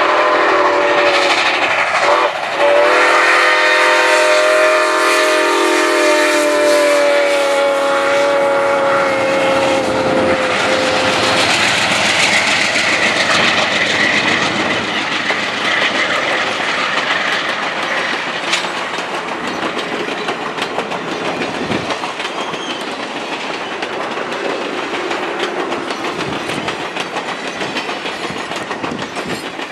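Steam locomotive whistle blowing: a short blast, a brief break about two seconds in, then one long blast that ends about eleven seconds in. After it the passing passenger train is heard, its wheels clicking over the rail joints, slowly fading as the cars go by.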